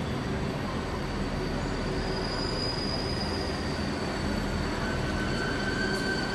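Euregiobahn Talent diesel multiple unit pulling in along the platform, its engines and running gear giving a steady low rumble. A high, steady metallic squeal sets in about two seconds in, and a lower squeal joins it near the end.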